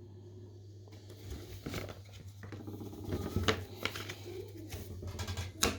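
Trading cards being handled: light scratching, shuffling and small taps, with one sharper click near the end.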